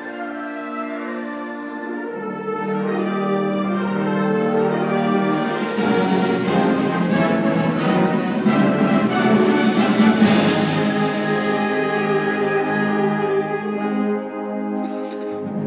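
Symphonic band playing sustained chords, swelling to its loudest about ten seconds in, then easing back.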